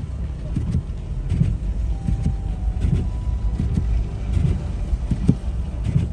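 Car driving, a steady low road rumble with irregular short thumps.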